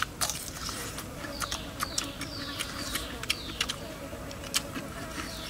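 Chewing and lip-smacking from eating grilled pork ribs by hand: irregular wet clicks and smacks. Behind them, from about a second in, a high chirp that falls in pitch repeats about twice a second.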